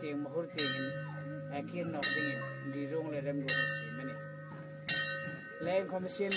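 Bell-like chime struck about every second and a half, each strike ringing on in steady tones, under a man talking.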